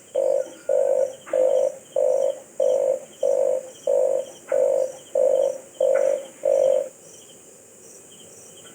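Red collared dove calling: a run of about a dozen short, rough, low coos, evenly spaced at roughly one every half second or so, which stops about seven seconds in.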